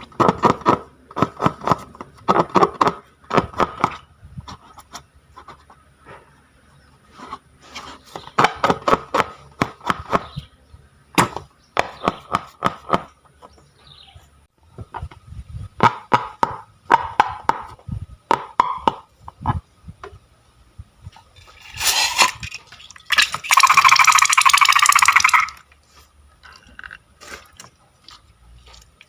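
Slime being squeezed and worked by hand: bursts of rapid sticky clicks, crackles and squelching pops. About 22 seconds in there is a loud hissing rush that lasts a few seconds.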